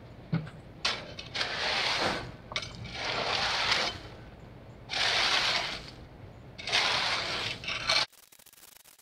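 Rake dragged through gravel over landscape fabric, scraping in four long strokes of about a second each, spreading gravel for a path.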